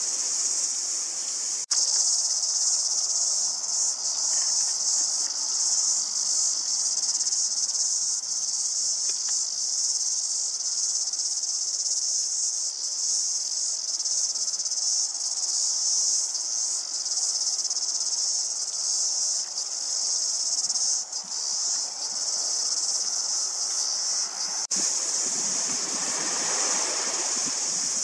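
A dense chorus of insects shrilling steadily and high-pitched without a break. A lower rushing noise swells near the end.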